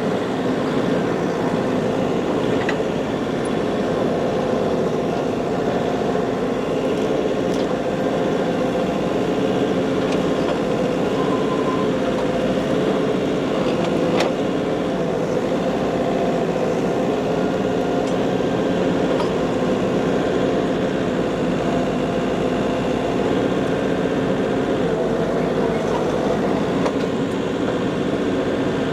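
Tractor engine running steadily under work, with a few faint knocks.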